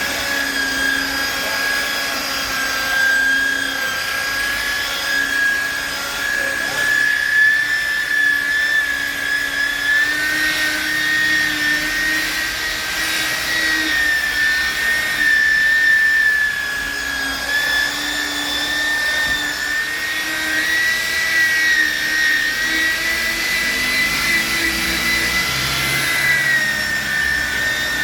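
Handheld electric power tool's motor running with a steady high whine; its pitch drifts slightly up and down as it is pressed and worked.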